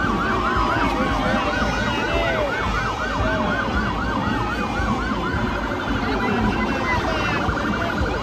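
Several emergency-vehicle sirens sounding together. A yelp cycles about four times a second and switches to a faster warble a little past halfway, over a slower wail that glides down in pitch, all above a steady low rumble.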